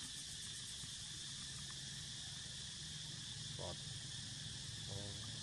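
Steady high-pitched chorus of insects droning outdoors, with a low hum beneath it. Brief faint vocal sounds come about three and a half seconds in and again near the end.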